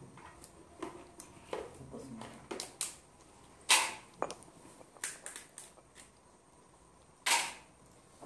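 Crab shells and claws being snapped and cracked apart by hand while the crabs are cleaned: a run of small clicks and cracks, with two louder sharp cracks, one about halfway through and one near the end.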